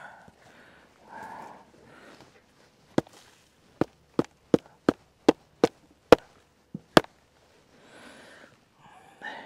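A series of about ten sharp clicks or knocks, roughly two a second over four seconds, with soft rustling of clothing and handling before and after.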